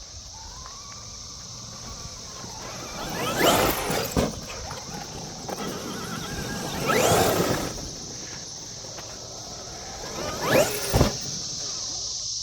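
Traxxas XRT RC truck's brushless electric motor whining up in pitch as it accelerates, in three loud bursts about three and a half seconds apart.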